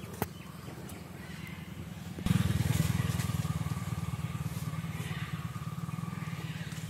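A small engine running nearby with a steady low pulsing rumble, which gets suddenly louder a little over two seconds in and then holds.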